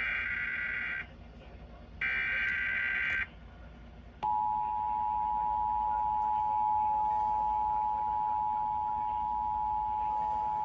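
Emergency Alert System broadcast: two bursts of SAME header data tones, each about a second long and a second apart. About four seconds in, the steady two-tone EAS attention signal begins and holds on. It announces that a severe thunderstorm warning is about to be read.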